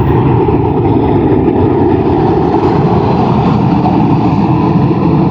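Four-engine Airbus A340 jet airliner passing close on its landing approach, its engines making a loud, steady rumble with a wavering drone.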